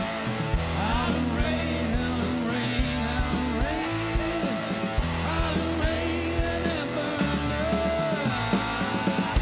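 Blues-rock band playing live: electric guitar with bending notes over bass and a drum kit with cymbals, at a steady driving beat.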